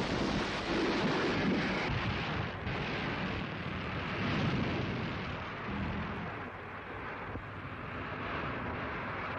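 Underwater atomic bomb blast on an old newsreel soundtrack: a sudden blast followed by a long rumbling roar, easing slightly after about six seconds.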